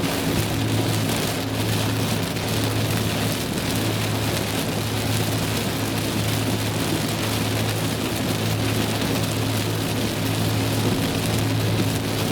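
Heavy rain on a moving car, with a steady low engine and road hum underneath.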